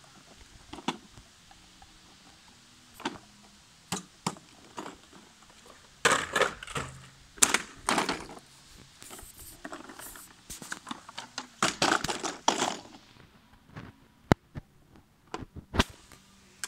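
Irregular sharp clicks and knocks, with a few longer rustling bursts about six and twelve seconds in, as a plastic toy ride-on car is handled on the grass.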